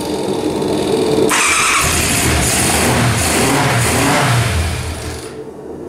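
Motorcycle engine cranked on the starter; it catches about a second in and starts at once, revs up and down several times, and then stops near the end. Starting straight away like this shows healthy ignition, here on the original ignition coils fitted with new spark plug caps.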